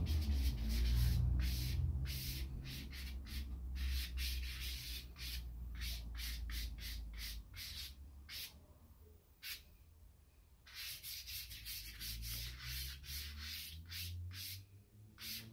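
Willow charcoal scratching across a large sheet of cartridge paper in quick, repeated drawing strokes, several a second, with a lull of about two seconds a little past halfway.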